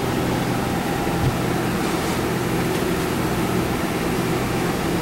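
A steady low mechanical hum with a brief low thump about a second in.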